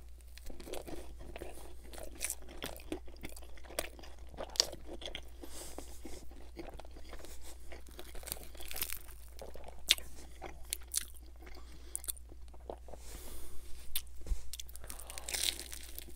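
A person chewing pizza close to the microphone, with many irregular crunches from the crust.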